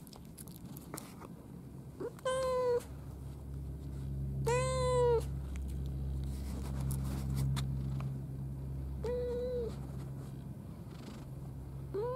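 A domestic cat meowing four times in short, level-pitched meows a few seconds apart. The second is the longest and loudest, rising and then falling in pitch, and the last starts right at the end. A low steady rumble runs underneath from about four seconds in.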